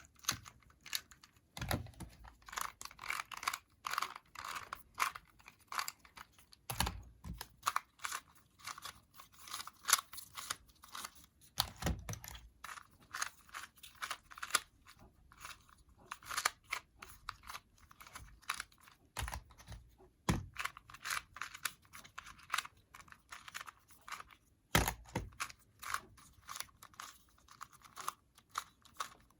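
Plastic 2x2 puzzle cubes being scrambled by hand: rapid, irregular clicking and clacking of the layers turning, with a dull knock every several seconds.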